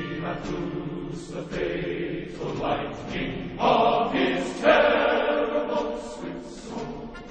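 Background music with a group of voices singing together, like a choir.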